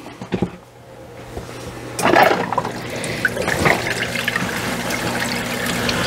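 Waterfall spray booth switched on: a few faint clicks, then about two seconds in water starts rushing and splashing down the glass back over the steady hum of the recirculating pump. The water is running in broken streams rather than a full sheet.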